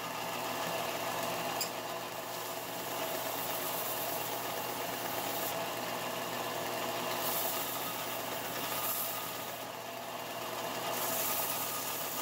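Bench belt-and-disc sander running with a steady motor hum, its belt sanding the edge of a wooden board. The sanding comes and goes as a louder hiss over the hum, several times and strongest near the end.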